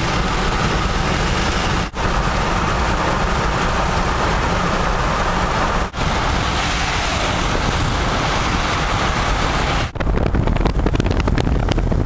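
Steady road and wind noise of a car driving at speed, heard from inside the vehicle. It cuts out briefly about two, six and ten seconds in. After the last cut it turns rougher and gustier, like wind buffeting the microphone.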